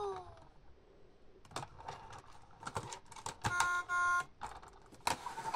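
Plastic clicks and knocks from a VTech Go! Go! Smart Wheels toy car being handled on plastic track pieces. The toy's falling electronic sound effect fades out in the first half second, and about three and a half seconds in there is a short steady electronic beep lasting under a second.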